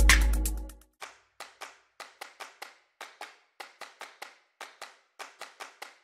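Electronic music with a deep falling bass sweep fades out about a second in. It is followed by a run of sharp, dry hand claps, two or three a second in an uneven pattern, with nothing else under them.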